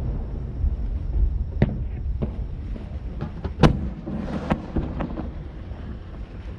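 Fireworks going off: a handful of sharp bangs and pops, the loudest about three and a half seconds in, followed by a brief crackle, over a steady low rumble.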